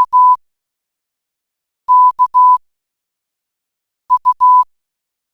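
Morse code played as computer-generated beeps by an online text-to-Morse converter, all at one steady pitch. There are three groups about two seconds apart: dot-dash, then dash-dot-dash, then dot-dot-dash.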